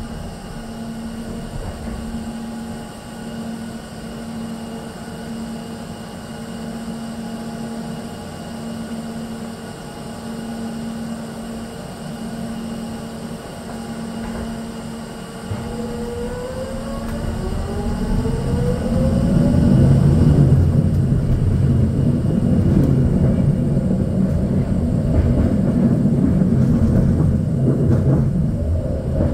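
SkyTrain car heard from inside at the front. It hums steadily at standstill, then a rising whine from its linear induction motor drive starts about halfway through as the train pulls away, followed by a louder rumble of the car running along the guideway.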